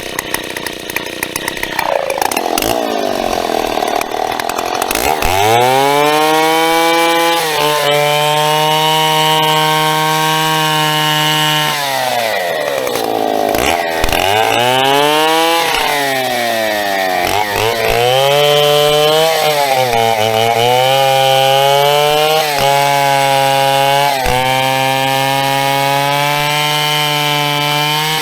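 Large vintage Stihl two-stroke chainsaw revving up to full throttle about five seconds in and cutting birch at high, steady revs. The engine drops back and picks up again twice, around the middle, then holds high to the end.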